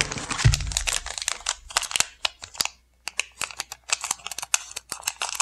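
Foil booster-pack wrapper crinkling as it is handled, then scissors snipping across the top of the pack in a quick run of small sharp clicks.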